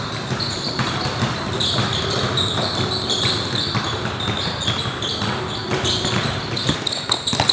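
Several basketballs being dribbled at once on a hardwood gym floor, the bounces overlapping into a continuous stream, with short high sneaker squeaks now and then.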